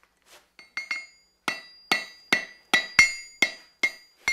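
About a dozen sharp metallic strikes, roughly two to three a second, each ringing briefly with the same high tone and loudest around the middle.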